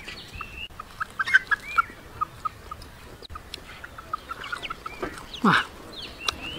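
Chickens clucking: a run of short, repeated clucks, with one louder call about five and a half seconds in that falls sharply in pitch.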